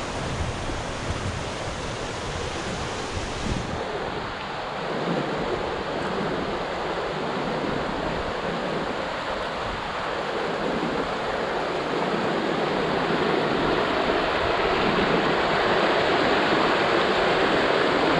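Rio das Almas rushing over rock rapids: a steady rush of water that grows louder toward the end. Wind buffets the microphone with a low rumble in the first few seconds.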